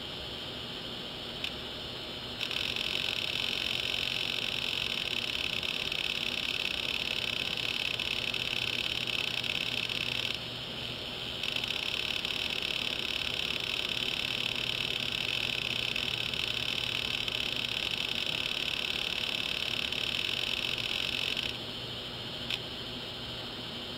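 Hard drive running with its cover off: a steady high-pitched buzz that starts a couple of seconds in, drops out for about a second near the middle and stops near the end, over a low hum, with a few faint clicks before and after.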